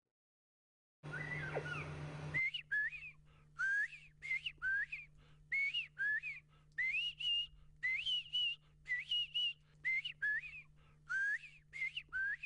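Northern bobwhite quail calling. After a brief rush of noise about a second in, many short rising whistled calls follow, about two a second, each sliding up to a higher note, over a faint steady low hum.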